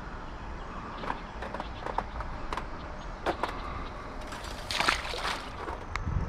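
Small clicks and rustling of grass as a largemouth bass is lowered to the water's edge, then a brief splash about five seconds in as the bass is let go into the pond.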